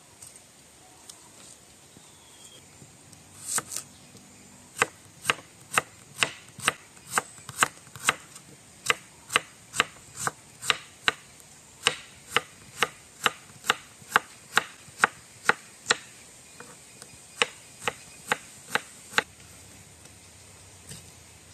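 Kitchen knife chopping a red onion on a wooden chopping board: a steady run of sharp knocks, about two a second, that stops a couple of seconds before the end.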